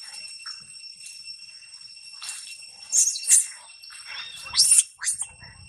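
Macaques screaming: a run of shrill, high-pitched shrieks starting about two seconds in, loudest around three seconds and again just before five, one sliding down in pitch. These are distress screams of a frightened young monkey.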